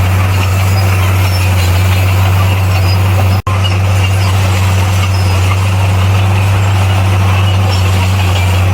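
Heavy diesel engine of earthmoving equipment running steadily with a constant low drone, dropping out for an instant about three and a half seconds in.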